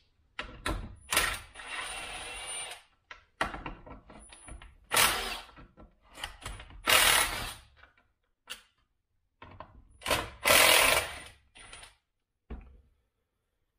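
Cordless drill-driver running in about six short bursts, each half a second to a second and a half long, backing out the screws that hold a chainsaw's top handle.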